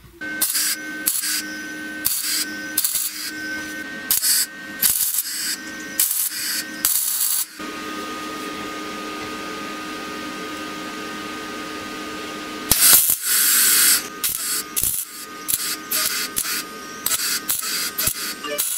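MIG welder arc crackling in short bursts, with the loudest, longest burst a little past the middle, over a steady hum.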